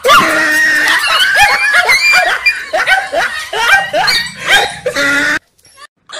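Small dogs barking and yapping in rapid, high-pitched bursts, several a second, which cut off suddenly about five seconds in.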